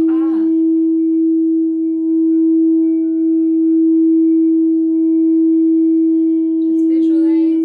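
Frosted quartz crystal singing bowl played with a mallet around its rim, giving one loud, steady sustained tone with fainter higher overtones ringing above it.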